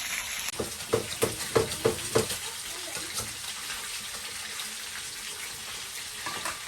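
Water running steadily from a kitchen tap. A run of about six quick knocks comes about a second in.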